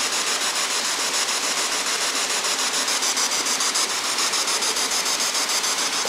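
Spirit box sweeping through radio stations: a steady rush of radio static chopped into rapid, even pulses, with no voice coming through.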